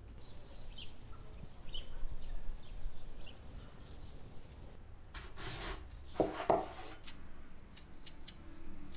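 Kitchen knife shaving the peel off a daikon radish: a few rough, rasping scrapes about five to seven seconds in, after faint light chirps at the start.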